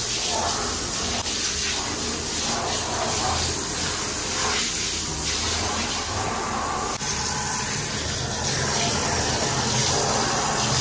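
Steady rush of water from a hand-held shower head splashing onto a plastic ride-on toy car in a bathtub.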